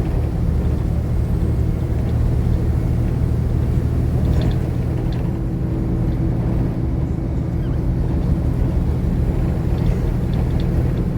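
Steady rumble of a bus engine and road noise, heard from inside the moving bus.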